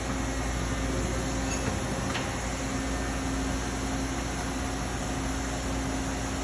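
Steady machine hum with a held low tone, the running noise of a machine shop around a CNC lathe, with one faint click about two seconds in.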